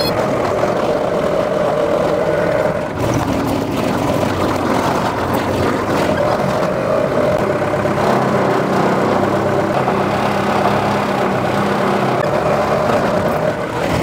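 Skid steer loader's engine running steadily, its pitch shifting a little in the middle as the machine is driven.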